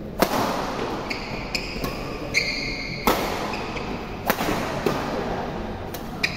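Badminton rally: sharp racket strikes on the shuttlecock, three loud ones about a second, three seconds and four seconds in, with lighter hits after them. Short high squeaks of court shoes sound between the strikes.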